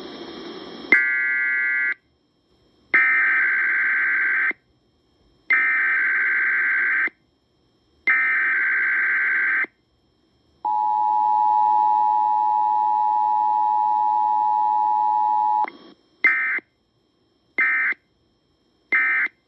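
Emergency Alert System tones on a broadcast relay. A short data burst about a second in is followed by three SAME header data bursts about a second apart. Next comes the steady two-tone attention signal held for about five seconds, then three short end-of-message data bursts near the end.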